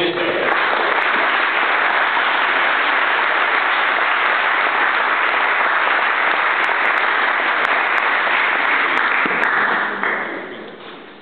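Audience applauding steadily, dying away about ten seconds in.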